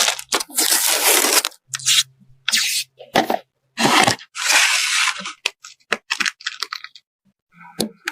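A series of short rustling, tearing noises, each lasting about half a second to a second, thinning out to a few scattered clicks near the end.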